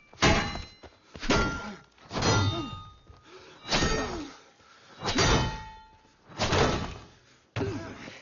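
Sword-fight sound effects: a sword hacking against a round shield and armour, about seven heavy metallic clangs a second or so apart, each with a short ringing tail.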